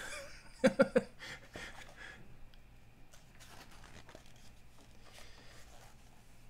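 Glossy magazine pages being turned and handled: a second-long paper rustle about a second in, then faint paper handling. Just before the rustle, three quick voiced pulses from the person.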